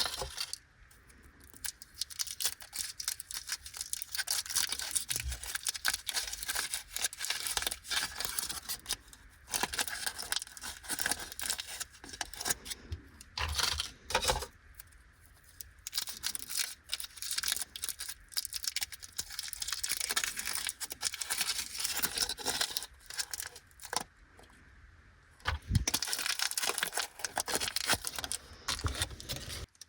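Glico Petit Cube chocolate wrappers being crinkled and torn open, in stretches of dense crackling broken by a few short pauses.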